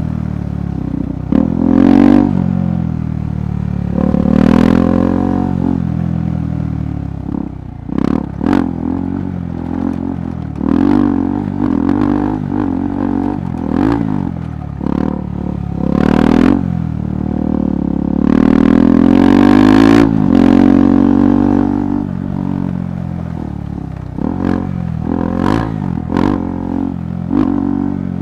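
KTM 390 Adventure's single-cylinder engine on an off-road ride, its revs rising and falling again and again as the throttle is opened and closed, with scattered sharp knocks and clatter from the rough ground.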